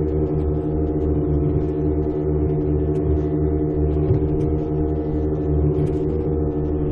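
Motorboat engine running at a steady speed: an even, unchanging drone with a pulsing low throb, and faint bits of water hiss over it.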